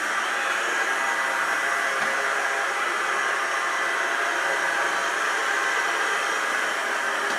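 clever&clean M-series 002 robot vacuum cleaner running: a steady whirr of its suction fan, with a faint high whine held throughout.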